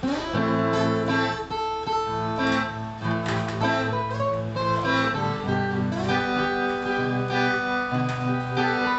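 Acoustic guitar strumming sustained chords in an instrumental passage, with the chords and low notes changing every second or so.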